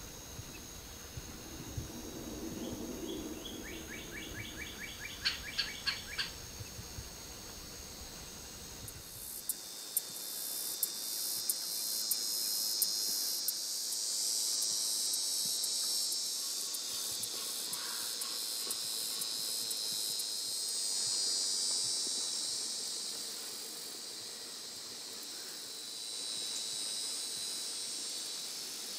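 Insects trilling in a dense, high chorus with fast pulses, starting abruptly about ten seconds in and carrying on, swelling and easing. Before that there is a fainter high insect whine over a low rumble, and a bird's quick run of about ten notes around five seconds in.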